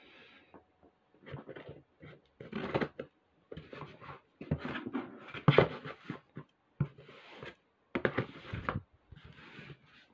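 Scissors blade being pushed and dragged through the packing tape on a cardboard box, with scraping, tearing and cardboard rustling in irregular bursts and short gaps between them.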